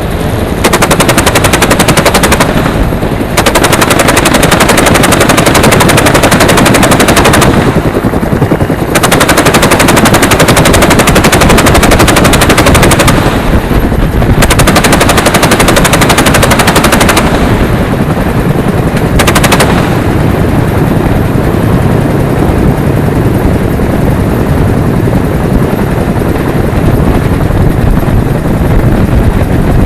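Rapid automatic gunfire in long sustained bursts, broken by short pauses about 3, 8, 13 and 18 seconds in, then carrying on a little quieter from about 20 seconds in.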